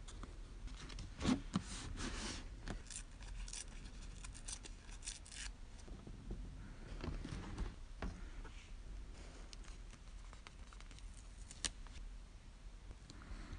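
Paper rustling and light taps as hands handle small decorated paper cards and lay them down on a mat. The rustling is busiest in the first five seconds, with a sharper click about a second in.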